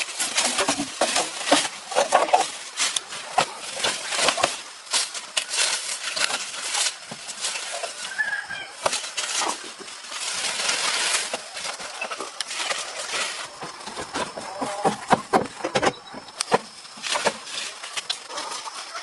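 Chickens clucking now and then, among repeated sharp knocks and clatter and a few seconds of scraping noise about halfway through.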